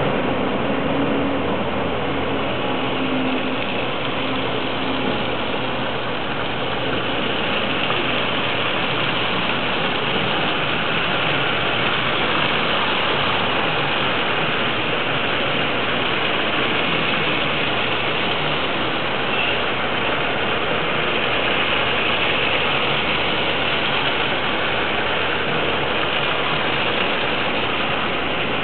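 Steady road traffic noise from slow-moving, queued cars on snowy roads: a continuous even hiss with no distinct events.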